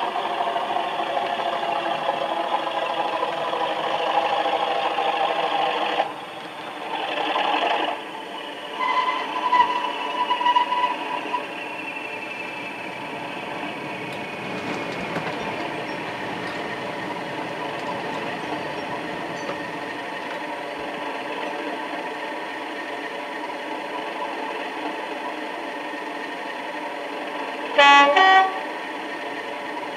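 Diesel locomotive sound from a sound-fitted model train: the engine runs steadily and drops back about six seconds in. The horn sounds briefly around nine to eleven seconds, and a short, loud two-tone horn blast comes near the end.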